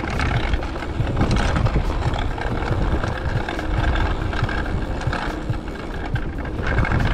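Mountain bike being ridden over rough ground: a steady rumble of tyres and frame with small irregular knocks and wind on the microphone. Its cassette has just been re-tightened.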